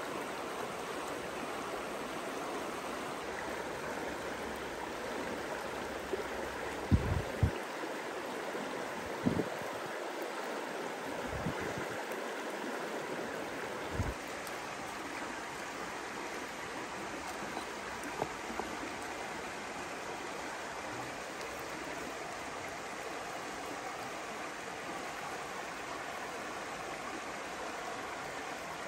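Shallow creek running over rocks: a steady rush of flowing water. A handful of short, low thumps come in the first half.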